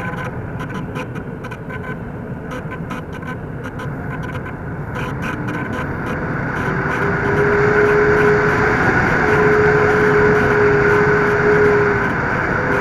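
Airflow rushing over a radio-controlled model plane's onboard camera, with the thin steady whine of its motor and propeller. About halfway in a lower steady hum joins and the sound grows louder as it banks low over the grass on its landing approach.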